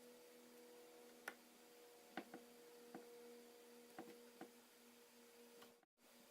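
Near silence: a faint steady hum with about six small, scattered clicks.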